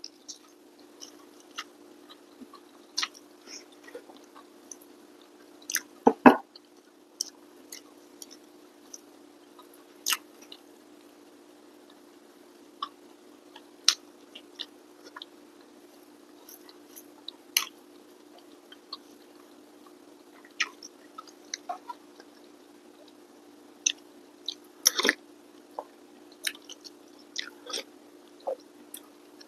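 Close-up chewing and mouth sounds of someone eating rice and side dishes by hand: scattered wet clicks and smacks, with two louder knocks about six seconds in and near the end, over a faint steady hum.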